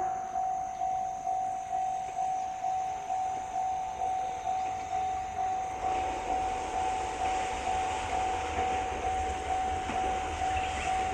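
Japanese level-crossing warning bell ringing, a steady electronic ding about twice a second. From about halfway in, the rumble and rail noise of an approaching train rise under it.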